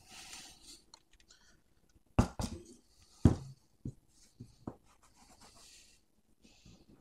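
Metal amplifier chassis handled and set down on a wooden workbench and wooden blocks: two loud knocks a little after two and three seconds in, then a few lighter taps, with soft rustling of handling around them.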